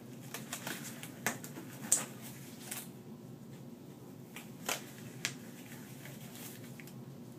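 Disposable exam gloves being pulled on: rubbery rustling and a handful of sharp snaps, the loudest about two seconds in.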